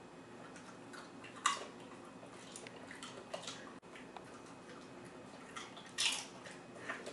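Irregular crunching and crackling of potato chips being eaten, with louder crackles about a second and a half in and again near six seconds.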